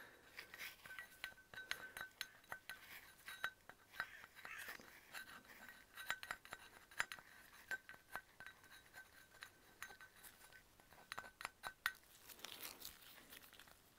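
Faint, scattered light clicks and clinks of a steel cylinder liner being turned in gloved hands while blue Hylamar sealant is squeezed from a tube around it, over a faint steady high tone. The clicks bunch up about halfway through and again near the end.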